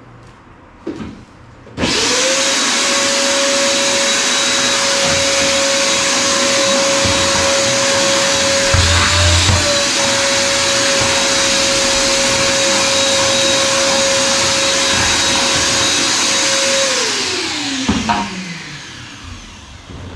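Small electric vacuum cleaner switched on about two seconds in, running steadily with a motor whine and rush of air, then switched off near the end, its whine falling as the motor winds down.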